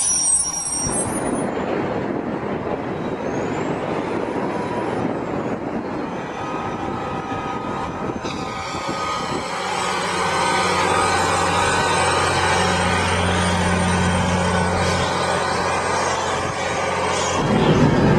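A city transit bus's diesel engine running with a steady broad rush. About eight seconds in, the sound switches to an airport crash-rescue fire truck: its diesel engine drones steadily under the hiss of water jetting from its roof and bumper turrets. Near the end a louder machine cuts in.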